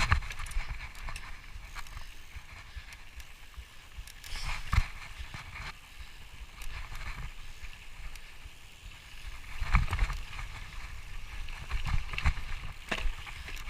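Bicycle riding over a rough dirt trail: a low rumble with irregular knocks and rattles as the wheels hit bumps, the strongest jolts about five seconds in and again near ten seconds.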